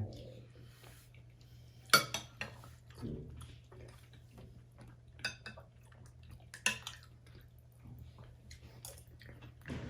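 Spoons clinking and scraping against bowls of goto (rice porridge) during eating, in scattered sharp clinks, the loudest about two seconds in and another near seven seconds.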